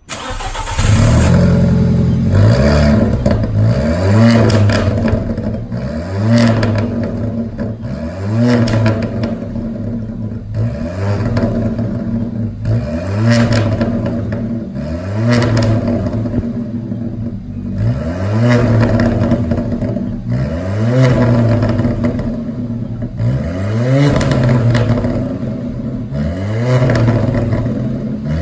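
Alfa Romeo 4C Spider's turbocharged 1.75-litre four-cylinder engine, fitted with a racing exhaust, starts up and is then revved in short blips about every two seconds. Sharp pops and crackles come from the exhaust as the revs fall back to idle.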